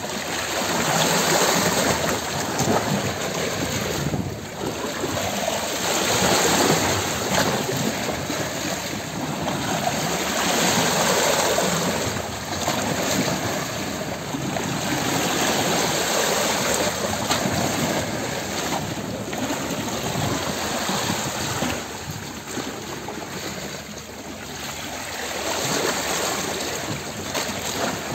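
Rushing, flowing water, a steady dense wash that swells and eases every few seconds.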